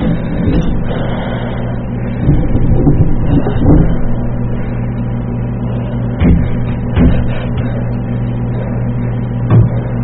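Steady low droning hum with a few dull knocks over it, muffled and thin as on a phone voicemail recording.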